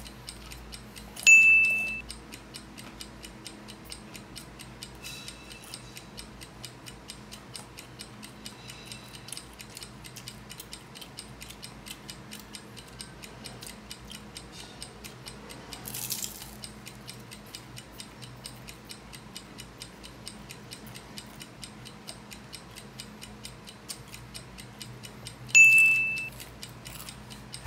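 Steady clock-style ticking, evenly spaced, as of a countdown timer. A short bright ding sounds about a second in and again near the end, the loudest sounds here.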